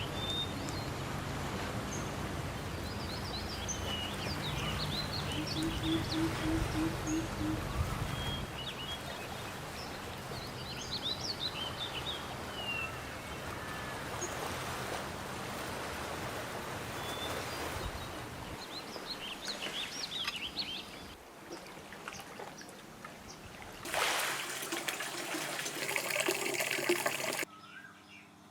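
Birds chirping repeatedly over a steady trickle of water. Near the end a louder rushing noise comes in for a few seconds, then the sound cuts off suddenly.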